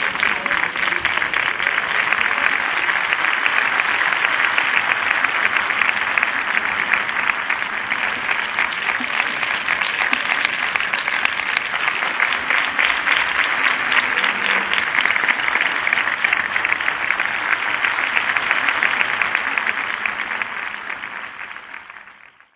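Audience applauding, a dense steady clatter of many hands clapping, fading out near the end.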